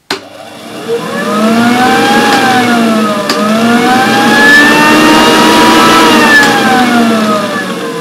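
A switch clicks, then the Nilco 271 commercial upright vacuum's 660-watt motor and dirty fan start up, with its belt-driven brushroll spinning and the base plate off. The whine rises in pitch, dips briefly about three seconds in, rises again, then sinks in pitch and level near the end. It is an odd sound for a vacuum cleaner.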